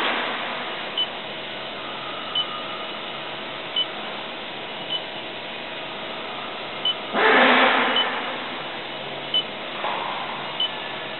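CNC dovetail tenoning machine running with a steady motor hum, short high beeps repeating about every second and a half. A loud rushing burst lasting about a second comes about seven seconds in, with a weaker one near the end.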